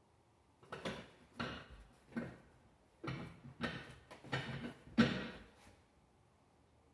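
Creaks and knocks from a metal Roman chair and its padded seat shifting under a person's weight during an abdominal exercise, about seven short noises over five seconds, the loudest near the end.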